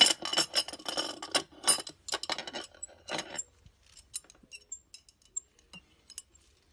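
Rapid light clicking and clinking of small hard objects for about three seconds, thinning out to scattered ticks and a few short, high peeps.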